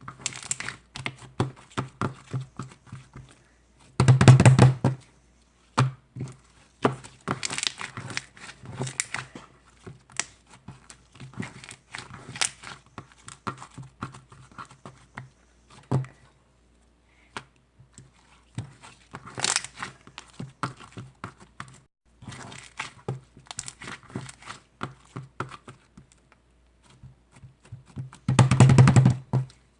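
Handling noises: rapid crinkling, tearing-like rustles and light taps, with a louder, longer rustling burst about four seconds in and another near the end.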